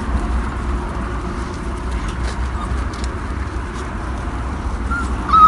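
Airedale terrier puppy giving a couple of short, high squeaky yips near the end, over a steady low rumble.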